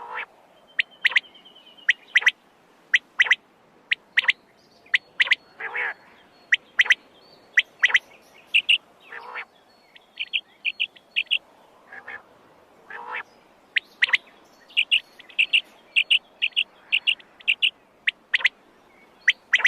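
Quail calling repeatedly: short, sharp downward-sweeping calls about once a second, runs of quick high chattering notes, and a few longer, lower calls in between.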